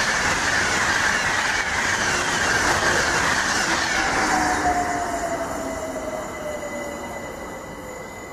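An express passenger train passes through at speed, a loud rush of wheels and air that fades over the first few seconds. Then an electric commuter train braking to a stop at the platform: its motor whine falls steadily in pitch, with a faint steady high squeal.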